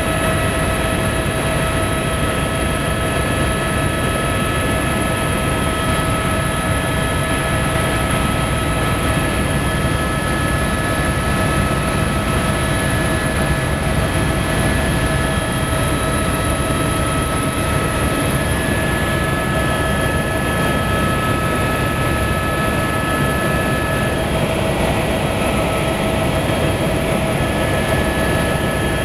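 Helicopter in steady cruising flight heard from inside the cabin: a constant engine and rotor drone with several steady whining tones over it.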